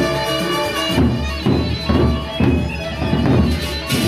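Gendang beleq ensemble playing: large double-headed barrel drums beaten with sticks come in about a second in with heavy strokes roughly twice a second, over a held melody line. Cymbals crash more brightly near the end.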